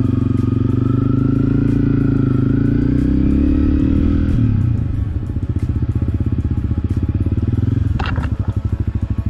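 Single-cylinder Honda CRF250L motorcycle engine running under way, its pitch shifting at first, then easing off to a lower, even beat about four and a half seconds in. A brief high squeak comes near the end.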